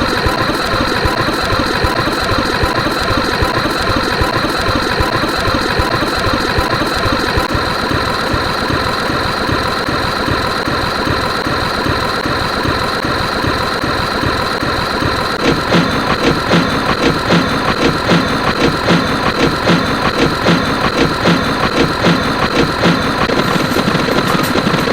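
A loud, dense mix of looping sound effects: many steady tones stacked over a rapid, engine-like chugging. About fifteen seconds in, a stronger fast pulsing joins.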